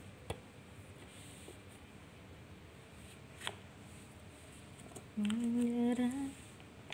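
A person's brief hummed 'mmm', held on one pitch for about a second near the end, over a couple of soft clicks as a dry cleaning cloth is pushed into the grips of a plastic flat mop head.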